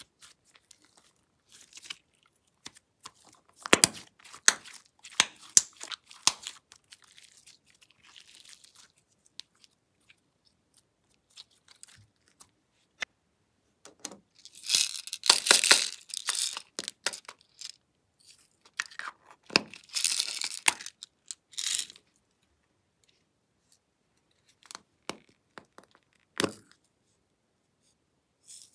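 Sticky purple slime being squeezed and handled by hand, making crackling, popping and rustling in bursts, with scattered clicks from plastic containers. There are longer quiet stretches in the middle and near the end.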